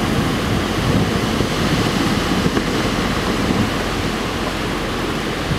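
Steady rushing noise of wind and sea water, with no separate events standing out.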